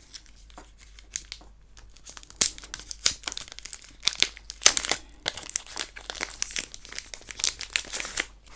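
Plastic packaging wrappers crinkling and rustling as they are handled and pulled open, an irregular run of sharp crackles that is loudest about two and a half and four and a half seconds in.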